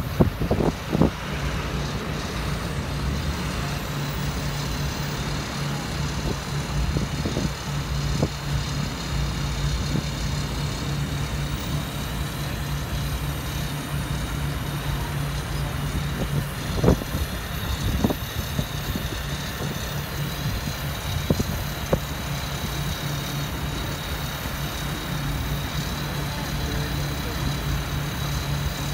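Mobile crane's diesel engine running steadily with a low hum, with a few short knocks scattered through it.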